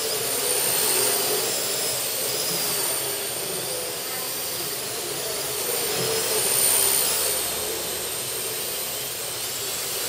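Parrot AR.Drone 2.0 Power Edition quadcopter's four electric motors and propellers whirring in flight, the pitch wavering up and down as it tilts and turns, and growing louder about a second in and again around seven seconds.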